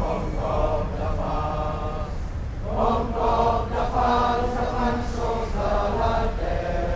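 A crowd of voices chanting in unison in drawn-out phrases, growing louder about three seconds in, over a low steady rumble.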